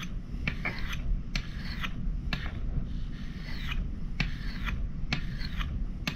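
Custom steel fire striker being sharpened on a medium sharpening stone: light back-and-forth strokes, about two a second, each a short scrape of steel on stone.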